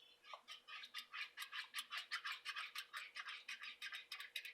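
Small brush scrubbing flux off a circuit board wet with isopropyl alcohol: quick, even back-and-forth scratchy strokes, about five or six a second.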